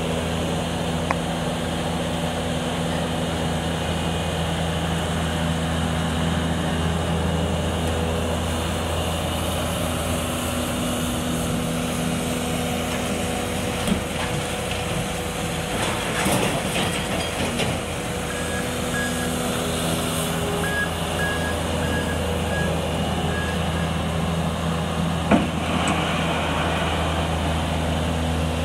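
Bobcat skid-steer loader's diesel engine running steadily, with a few sharp knocks as it works the kerbside waste. A faint beeping reversing alarm sounds for a few seconds past the middle.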